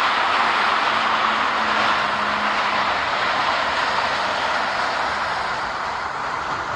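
Jet noise from a Boeing 737-400's CFM56 turbofan engines: a steady roar that slowly fades.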